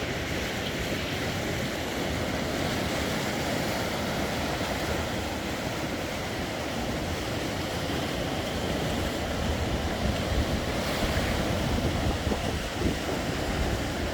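Sea waves washing on the shore in strong wind, a steady rushing surf. From about two-thirds of the way through, gusts buffet the microphone with uneven low rumbles.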